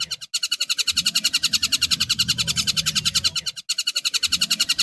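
Tengkek buto kingfisher calling: a rapid, even chatter of sharp notes, about a dozen a second, that breaks off briefly twice, with a faint low hum underneath.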